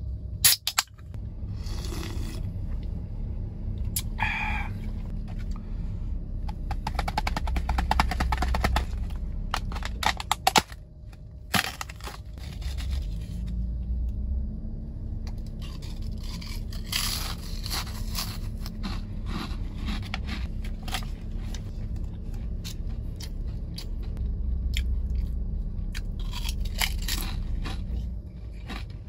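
Close-up eating sounds: a drink can's tab snapped open at the start, then repeated crunching and chewing of snacks, over a steady low hum.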